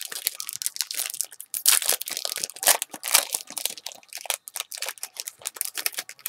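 Foil Topps Chipz card-pack wrapper crinkling and crackling as it is opened by hand: a dense, rapid crackle with a few louder crunches in the first half.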